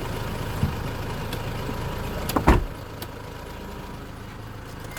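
A motor vehicle's engine idling with a steady low hum, with a single loud thump about two and a half seconds in, after which the sound is quieter.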